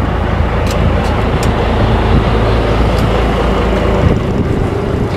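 Sportfishing boat's engines running, a steady low rumble.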